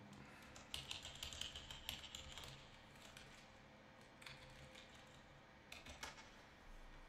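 Faint light clicks over near silence, in short clusters: a run of them about a second in, a couple around the middle, and a few more near the end.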